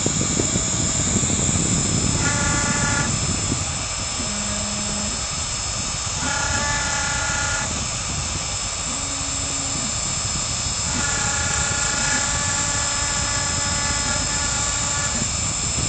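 CNC router spindle running steadily while it engraves wood, with a constant high whine. Over it, the stepper-driven axes whine in spells of one to four seconds, three times.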